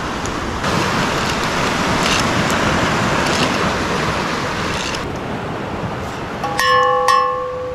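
Steady wash of surf on the shore. About six and a half seconds in, a small metal bite bell clipped to the fishing rod tip rings out, struck twice in quick succession.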